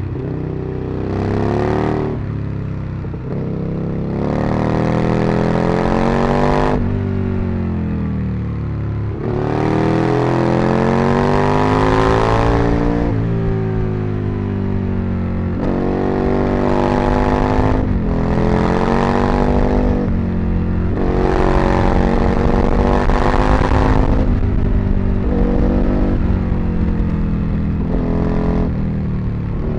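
Aprilia RSV Mille's 998 cc V-twin engine under way, pulling up through the revs again and again. Each rise is broken by a drop in pitch at a gear change or an easing of the throttle.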